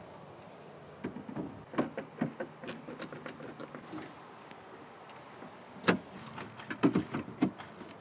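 Plastic center console panels being handled and pressed into place: scattered light clicks and knocks, the sharpest about six seconds in.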